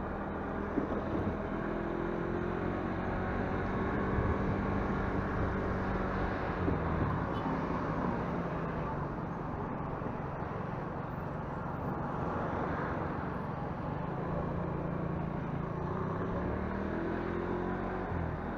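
Motorcycle engine running at low road speed, its pitch dipping and rising as the bike slows and pulls away again, with wind noise on the microphone.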